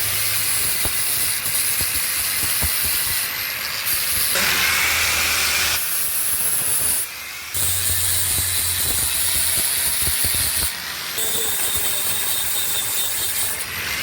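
Welding arc hissing steadily on a cracked motorcycle alloy rim, stopping briefly and restarting about every three to four seconds.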